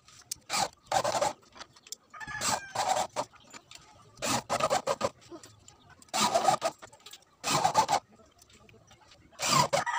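Corded electric drill driving screws into a speaker cabinet's cover panel, in about seven short bursts with pauses between.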